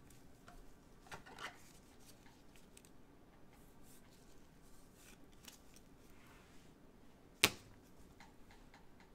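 Trading cards handled in gloved hands: faint rustling and sliding of cards against plastic as a card goes into a rigid top loader. One sharp click about seven and a half seconds in is the loudest sound.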